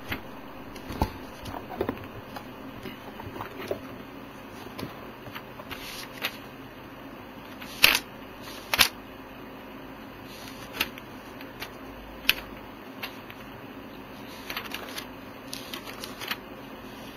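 Paper handling at a desk: book pages and loose sheets being turned and shuffled, giving soft rustles and scattered small clicks, with two louder rustles about eight and nine seconds in.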